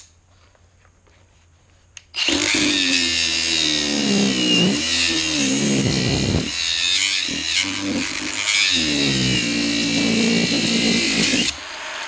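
Cordless angle grinder starting about two seconds in and cutting into a steel padlock body. Its motor pitch repeatedly sags as the disc bites into the metal and recovers as the load eases. The sound drops out briefly near the end before cutting resumes.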